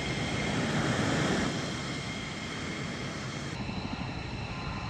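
Jet engines of a taxiing F-117 Nighthawk, its twin General Electric F404 turbofans, running with a steady rumble and a faint high whine. The sound changes abruptly about three and a half seconds in.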